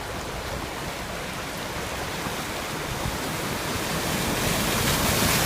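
River Mole in flood: fast floodwater rushing steadily, the noise growing louder and brighter over the last couple of seconds.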